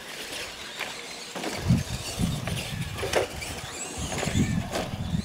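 Radio-controlled monster trucks driving hard across a dirt track: a low, pulsing rumble of tyres and chassis with scattered knocks and clatters, picking up about a second and a half in.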